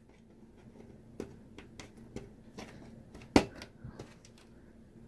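Plastic wire-harness connectors being plugged into sockets on a TV's circuit boards: scattered light clicks and handling taps, with one sharper click about three and a half seconds in.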